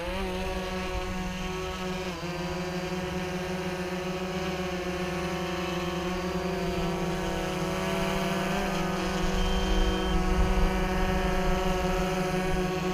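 DJI Phantom 3 quadcopter's propellers buzzing steadily as it lifts off and hovers, with a brief dip in pitch about two seconds in.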